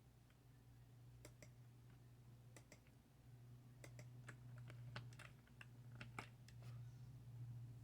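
Harbor Breeze Tebron ceiling fan running, a faint steady low hum, with irregular sharp clicks scattered through it.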